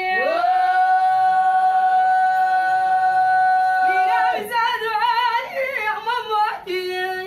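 A single unaccompanied voice singing: it holds one long high note for about four seconds, breaks into a quick wavering phrase with vibrato, and settles on a shorter, lower held note near the end.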